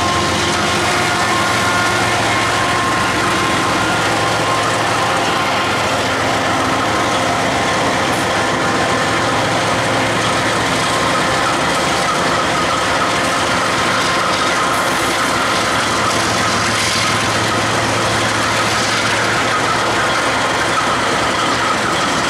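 Diesel-electric freight locomotives running: a steady, loud engine drone with several held high tones over it.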